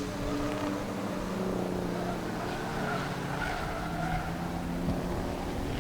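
Several race trucks' engines running around the track together, their tones rising and falling as they pass, with a faint tire squeal through the turns.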